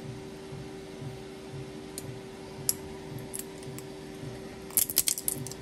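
Pliers twisting and pulling 3D-printed plastic support material out of a fidget spinner's bearing hole: a few scattered clicks, then a quick run of sharp cracking snaps near the end as the support breaks free, over a steady low hum.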